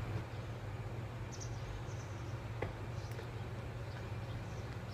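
Outdoor ambience: a steady low hum with a few faint high chirps, and a single light tick about two and a half seconds in.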